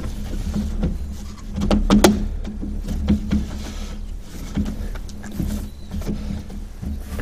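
Plastic engine-bay cowling and intake duct being handled and pushed into place: scattered clicks and knocks, the loudest about two seconds in, over a steady low hum.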